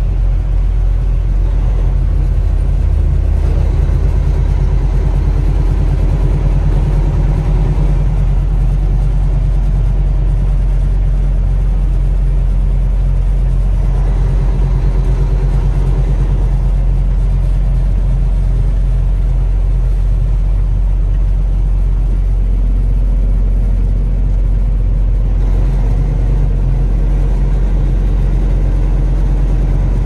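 Semi truck's engine and road noise heard inside the cab while driving: a steady, loud low rumble.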